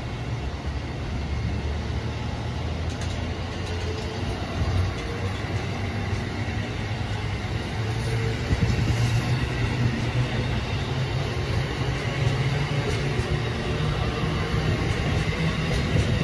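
Amtrak passenger train of Amfleet coaches rolling past: a steady rumble of steel wheels on rail, with a few short clicks along the way, growing a little louder about halfway through.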